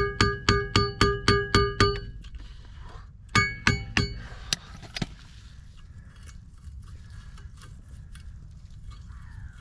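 Hammer striking metal in a steady run of about four ringing blows a second, which stops about two seconds in; a few more blows follow a little over three seconds in, then only faint tapping and clinking of tools.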